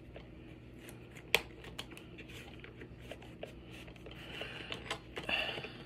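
Handling sounds as a pair of Channellock end nippers is drawn out of a leather tool belt pouch: scattered light metal clicks and clinks with one sharp click about a second in, and rustling of leather and cloth later on.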